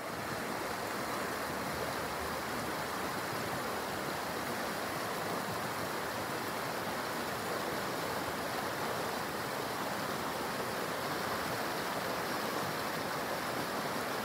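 Rocky creek rushing over stones in small rapids: a steady rush of water that swells in at the start.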